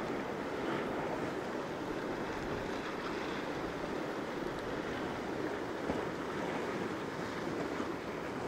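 Steady wash of sea water around a fishing kayak, with wind noise on the microphone.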